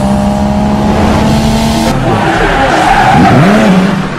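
Race-car sound effect: an engine runs at a steady pitch, then from about halfway through its pitch sweeps up and down over a tire-squeal hiss. It starts to fade near the end.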